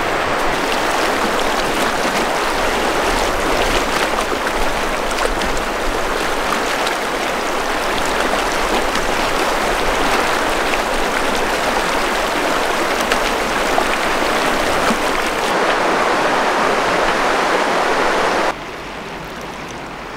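A fast, shallow river rushing over a rocky, cobbled bed in a steady wash of water noise. About a second and a half before the end it drops suddenly to a quieter hiss.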